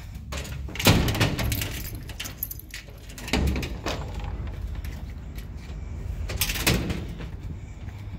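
A car door being handled, opened and shut, with three loud clunks about one, three and a half and six and a half seconds in, and rustling in between.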